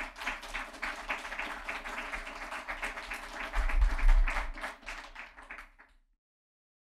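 Audience applauding, a dense patter of many hands, with a low thud about four seconds in; the applause cuts off suddenly about six seconds in.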